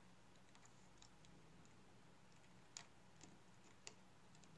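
Near silence with a few faint, sharp ticks of a precision screwdriver bit working a tiny screw on an iPhone 6s display assembly, the clearest three coming in the second half, over a faint steady hum.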